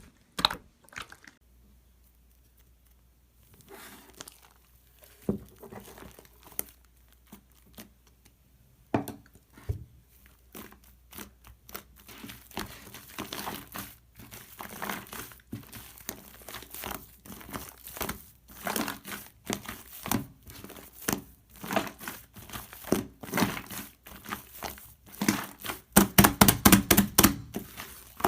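Crinkling and tearing of something being handled, in quick irregular crackles. It is nearly quiet for a few seconds near the start, then the crackling builds and is thickest and loudest near the end.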